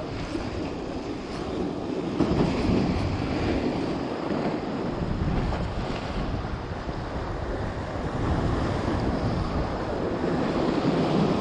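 Wind buffeting the microphone over the sound of sea waves washing against the shore, an unsteady rushing noise heavy in the lows.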